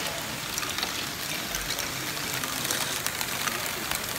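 LEGO Great Ball Contraption modules running, many small plastic balls rattling along tracks and lifts: a steady clatter made of many small sharp clicks.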